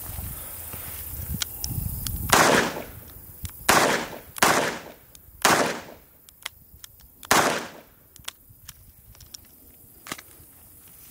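Five shots from a Chiappa Rhino .38/.357 revolver fired at an irregular pace, each a sharp crack with a short echoing tail.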